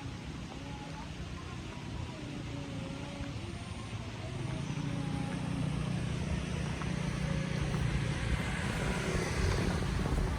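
A motor vehicle's engine coming closer, getting steadily louder from about four seconds in, over a steady hiss.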